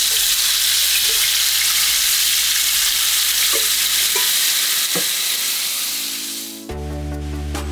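Blended red sauce paste sizzling loudly in hot oil in a wok, a steady frying hiss with a few light clicks of a wooden spatula stirring it. Near the end the sizzle dies down and background music comes in.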